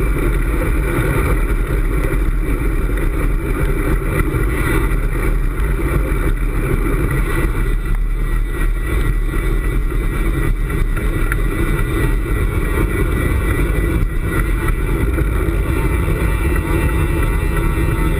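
Steady low rumble of wind buffeting a handlebar-mounted camera on a moving road bike, mixed with tyre and road noise.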